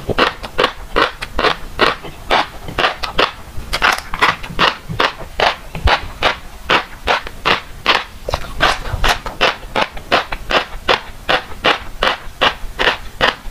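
Close-miked chewing of a mouthful of fish roe, the eggs crackling and popping with each bite in an even rhythm of about three a second.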